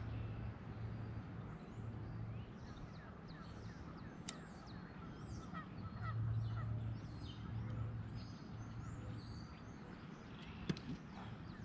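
Many short bird calls over gusts of wind buffeting the microphone, with two sharp clicks, one about four seconds in and a louder one near the end.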